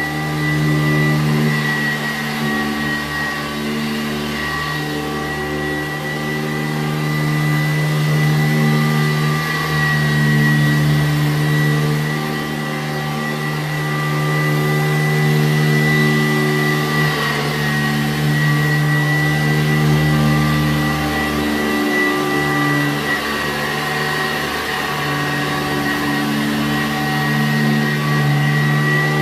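Sanitaire SC887B-2 commercial upright vacuum cleaner running with its 7-amp motor: a steady motor whine with a clear high tone. Its loudness swells and eases gently every few seconds.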